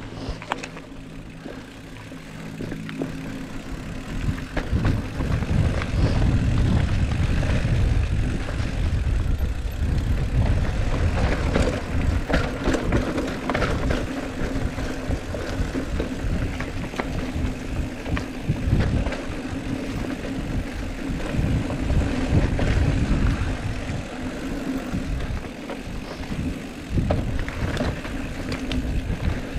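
Mountain bike riding fast down a dirt trail. Wind buffets the microphone, and the tyres rumble while the bike clatters over bumps, growing louder about four seconds in as speed builds.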